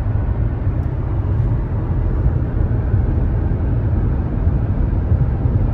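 Steady low rumble of a car driving at highway speed, heard from inside the cabin: tyre, road and engine noise.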